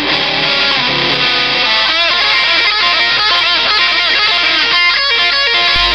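Rock music led by electric guitar, playing continuously at full volume.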